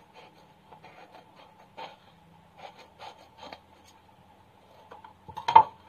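Scissors snipping through a glitter foam sheet in short, irregular cuts, with the sheet rustling as it is handled. A louder knock about five and a half seconds in.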